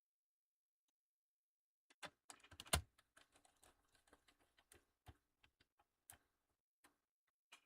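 Screwdriver driving small screws into a laptop's plastic bottom cover: a sharp knock about two seconds in, then a run of light, irregular clicks and ticks.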